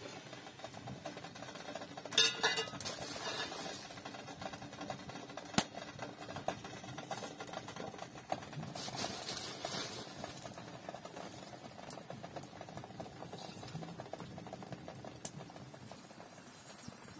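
Metal kettles and a teapot clinking on a small wood stove as they are handled, a few scattered sharp clinks, the loudest cluster about two seconds in with a brief ring.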